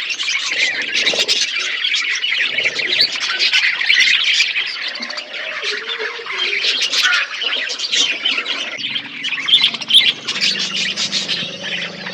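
A flock of budgerigars chattering and chirping continuously, many quick overlapping calls at once. A low steady hum joins about ten seconds in.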